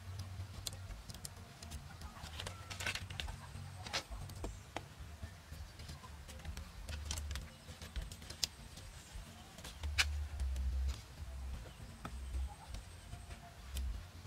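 Bamboo poles and strips knocking and clicking together while they are laid and tied by hand into a frame: scattered light taps, a few sharper knocks about 3, 4 and 10 seconds in, over a low rumble.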